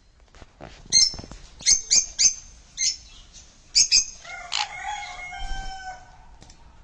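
Sun conure calling: a run of about seven short, loud, sharp shrieks, then a longer, lower, drawn-out call about two-thirds of the way through.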